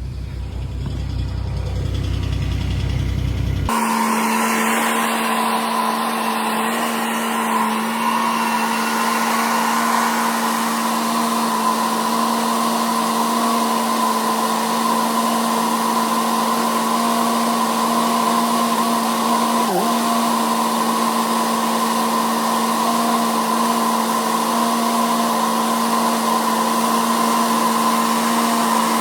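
A low engine rumble that cuts off suddenly about four seconds in, followed by a machine running at steady speed, giving a constant whine over a rushing, hair-dryer-like noise.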